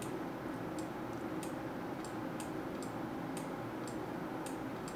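A clock ticking evenly, about two light ticks a second, over steady room noise.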